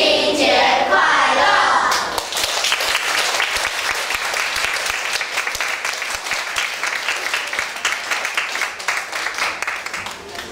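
A children's choir holds its final sung notes, ending about two seconds in, and a congregation's applause follows, slowly fading toward the end.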